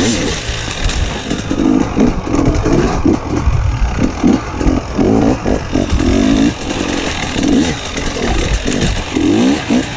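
Enduro motorcycle's engine, heard from a camera mounted on the bike, revving up and dropping back in quick repeated bursts as it is ridden over rocks and logs.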